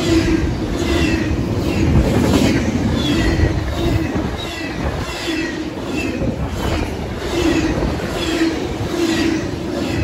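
Double-stack intermodal freight train of container well cars passing at speed: steady wheel-on-rail rumble with a clatter that repeats roughly every second as the cars' wheel trucks go by. Wind buffets the microphone.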